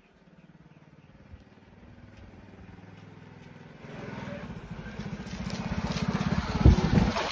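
Small motorcycle engine running with a fast, even pulse, getting louder from about four seconds in. A low thump near the end.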